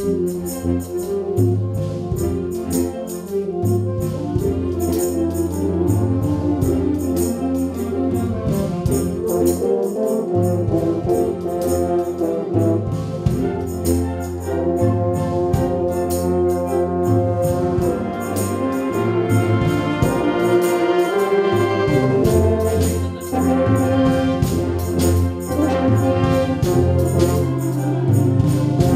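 A brass-heavy ensemble plays a rehearsal passage together under a conductor. Brass plays full sustained chords over a steady percussion beat, starting suddenly on the downbeat.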